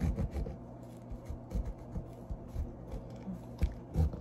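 Kitchen knife cutting around a whole avocado on a paper towel: small scrapes and soft squishy sounds of the blade through the skin, with scattered low knocks on the counter, the sharpest about three and a half seconds in.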